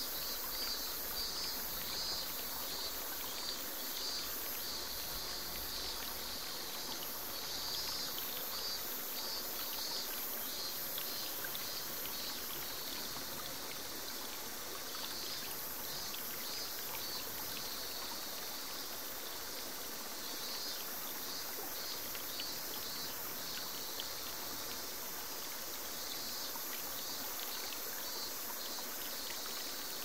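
Small forest waterfall splashing steadily into a pool. Insects call above it in rapid, evenly repeated pulses that swell and fade in spells.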